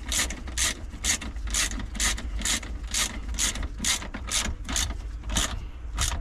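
Hand ratchet with a 10 mm socket clicking in short bursts about twice a second, each back-swing ratcheting as a battery terminal nut is tightened.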